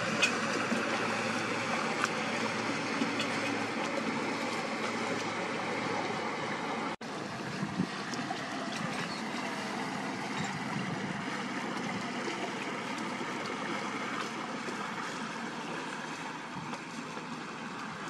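Motor cruisers passing on a river: a low engine hum with the rush and splash of their wake water, steady throughout. The sound cuts out for an instant about seven seconds in.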